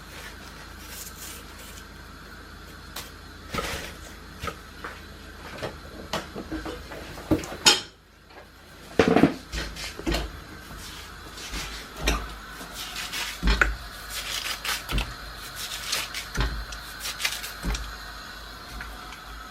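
Kitchen clatter of pots, dishes and utensils: irregular knocks and clinks, a few louder ones around the middle, over a faint steady hum.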